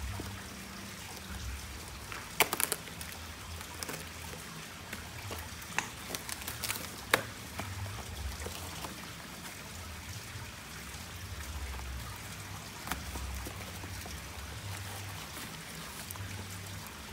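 Water trickling steadily into a pond, with sharp crackles and rustling of plastic wrapping and cardboard as a parcel is torn open by hand; the loudest crackles come about two and a half and seven seconds in.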